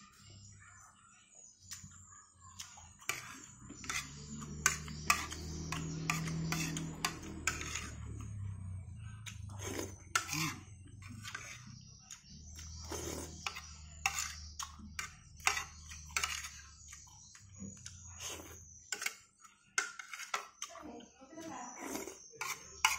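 Eating sounds: a metal spoon clinking and scraping on a plate in many short, sharp strokes, along with chewing and lip-smacking. A low hum runs underneath through the middle stretch and stops a few seconds before the end.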